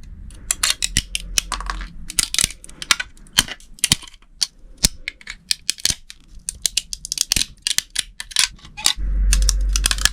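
A rapid, irregular series of sharp clicks and taps, over a low hum at the start that returns, louder, near the end.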